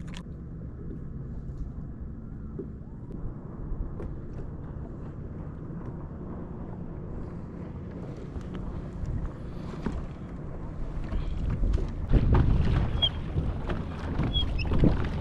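Water lapping and knocking against a kayak's hull, with wind rumbling on the microphone. It gets louder, with sharper splashes and knocks, for the last few seconds.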